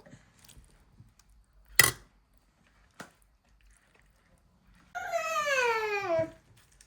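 A sharp knock, then a lighter click, then a domestic pet's single long call about five seconds in, falling steadily in pitch for over a second.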